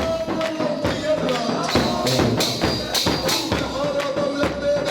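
Festive music: tambourine and hand-drum strokes keep a steady beat, about two a second, under a sustained melodic line.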